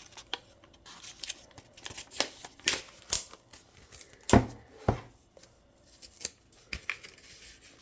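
An album package being opened by hand: an irregular scatter of sharp snips, clicks and crackles from cutting and handling the packaging. The loudest comes about four seconds in.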